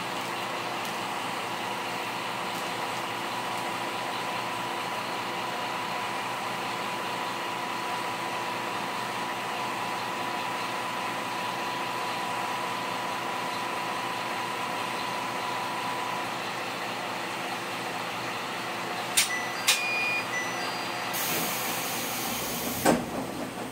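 MRT300 diesel railcar's engine idling steadily while the car stands at the platform, with a thin steady high tone that stops about two-thirds of the way through. Near the end there are two sharp clicks with short beeps, a burst of air hiss and a thump.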